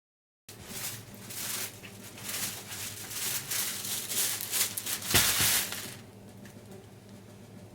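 Plastic packaging crinkling and rustling as it is handled, with a louder burst of rustling about five seconds in; it stops about a second later, leaving a faint steady hum.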